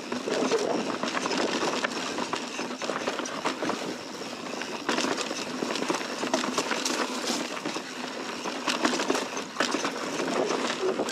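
Mountain bike riding over rough, rocky singletrack: tyres crunching over rocks, dirt and dry leaves, with a constant rattle and many small knocks and clicks from the bike.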